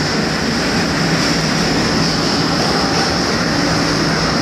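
Passenger train running, a steady loud noise that does not let up.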